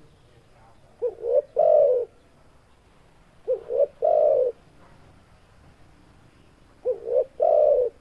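Spotted dove cooing: three calls about three seconds apart, each two short coos followed by a longer one.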